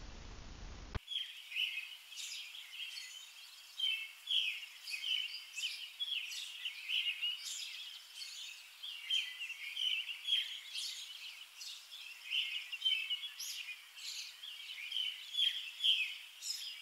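Small birds chirping in a dense chorus of short, quick calls, starting abruptly about a second in after brief room tone.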